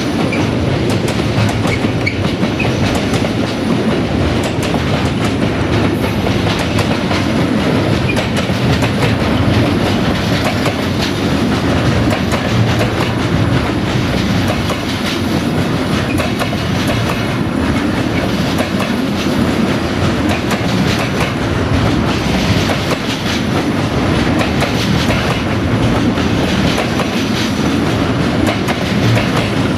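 Wagons of an intermodal freight train, pocket wagons loaded with lorry semitrailers, rolling past: a loud, steady rumble of wheels on rail with continual clattering over the rail joints.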